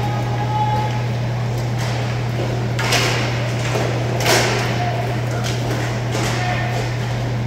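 Roller hockey play: two sharp cracks of stick and puck, about three seconds in and again about a second later, over a steady low hum.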